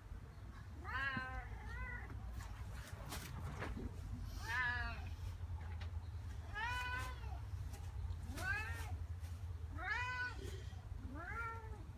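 Domestic cat meowing repeatedly: about seven drawn-out meows, each rising then falling in pitch, one every second or two.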